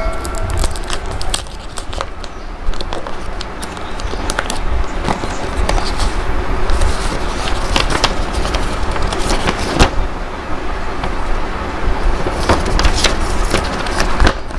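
Paper envelope being torn open and its folded paper inserts pulled out and handled, crackling and rustling in many sharp irregular bursts over a steady low rumble.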